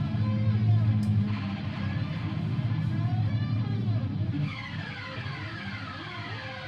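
Noise music from an electric guitar run through effects pedals: a dense, rumbling low drone with a single click about a second in. From about halfway the drone drops back and several repeated falling sweeps slide down over it.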